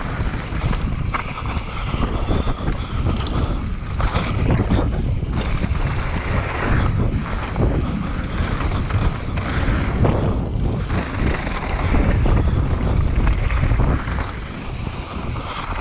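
Downhill mountain bike ridden at speed on a loose dry dirt trail: wind rushes over the microphone while the knobby tyres skid and crunch over dirt and stones, with short knocks as the bike clatters over bumps.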